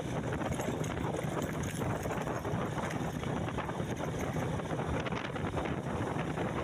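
A vehicle travelling over a rough road: a steady low engine hum under constant rattling and clatter, with wind buffeting the microphone.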